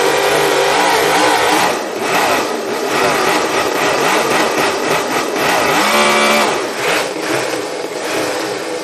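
Toyan miniature supercharged V8 model engine running and being revved up and down by hand, its pitch rising and falling several times, with one clear climb about six seconds in.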